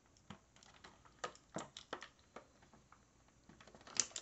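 Clear plastic blister tray clicking and crinkling as small spare action-figure hands are pried out of it: scattered faint clicks, busier near the end.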